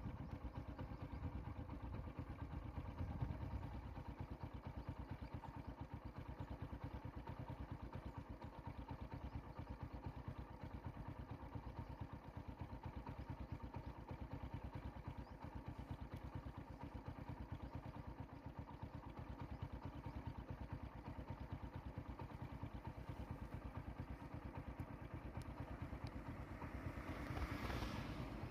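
A vehicle engine idling steadily: a fast, even pulse under a steady hum. Near the end a rushing noise swells briefly as another vehicle draws near.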